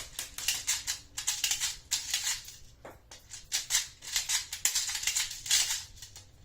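6 mm plastic BBs being pushed from a speed loader into an airsoft pistol's magazine: rapid, irregular clusters of clicks and rattling, pausing briefly about three seconds in.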